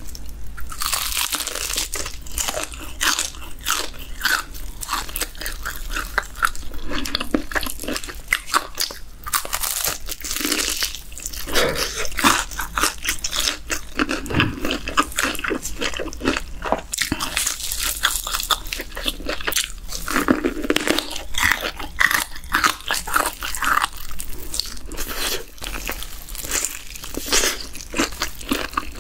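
Close-miked eating of a crispy fried chicken drumstick coated in cheese seasoning powder: sharp crunches of the crust as it is bitten, then repeated moist chewing, again and again.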